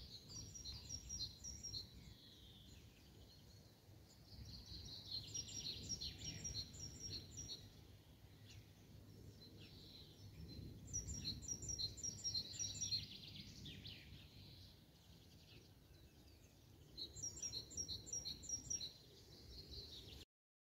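A songbird singing four short phrases, each a quick string of repeated high chirps, about five to six seconds apart. Under it runs a faint, steady low background noise.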